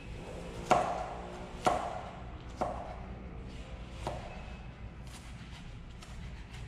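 Knife dicing red onion on a plastic cutting board: four firm chops about a second apart, the first the loudest, then lighter, quicker taps.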